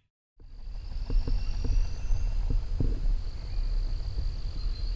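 A steady, high-pitched insect trill over low wind rumble on the microphone, with a few light ticks between one and three seconds in.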